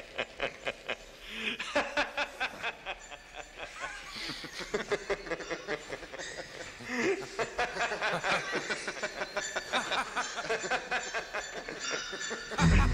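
A man laughing hard, in rapid rhythmic bursts that keep going. Near the end a loud, low sound comes in.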